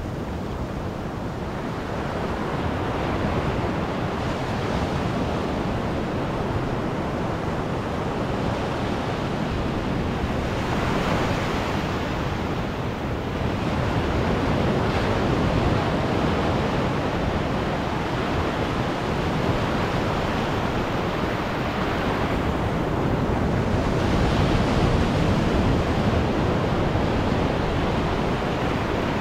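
Small ocean waves breaking and foamy wash running up over the sand at the water's edge, a continuous rushing that swells every several seconds as each wave comes in.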